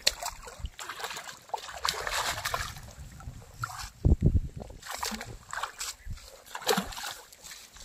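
A rohu thrashing and splashing in shallow water at the grassy edge of the bank, in repeated irregular bursts, with one heavy low splash about four seconds in.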